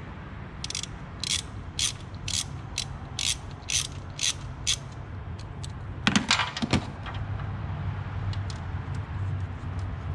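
Ratchet wrench clicking in short strokes, about two a second, as it loosens a rocker arm bolt on an LS V8 so the rocker can be pulled off. A louder clatter follows about six seconds in, over a steady low hum.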